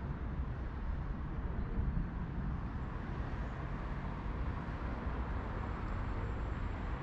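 Steady road-traffic noise from a city street, a constant low rumble of passing cars with no distinct events.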